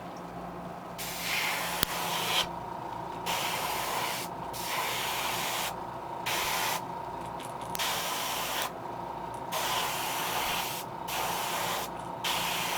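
Airbrush spraying lime green paint onto a crankbait in repeated hissing passes of one to two seconds, with short pauses between trigger pulls. A steady hum runs underneath.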